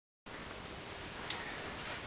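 Room tone: a steady faint hiss that starts about a quarter second in, with one faint click a little past a second in.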